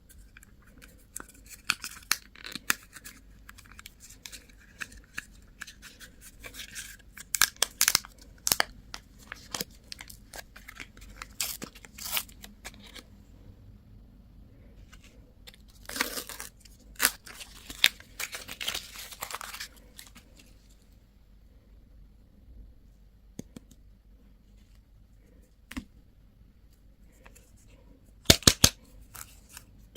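Candy packaging being torn open and crinkled by hand, in irregular rustles and sharp clicks. It goes quieter in the second half, then there are a few sharp clicks near the end.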